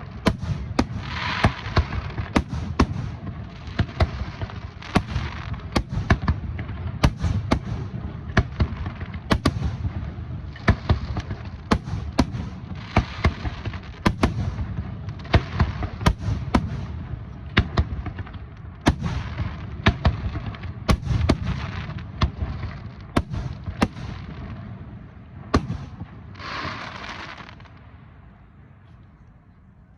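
Fireworks display: a dense barrage of aerial shell bangs, several a second, with crackling hiss between them. The bangs thin out and fade near the end.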